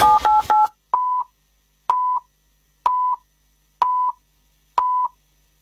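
Radio station time-signal pips. A quick run of three two-tone electronic blips with a rising upper note, then five short, evenly spaced beeps at the same pitch, about one a second, counting down to the time announcement.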